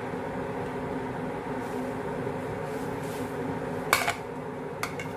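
Steady fan hum in a kitchen, with a few sharp clinks of a dish and utensils about four seconds in and again near the end.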